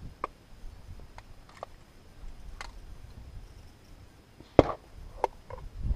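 Rifle being cleared after firing: a few light clicks of handling, then a sharp metallic clack about four and a half seconds in and a second one just over half a second later as the action is worked to clear the gun.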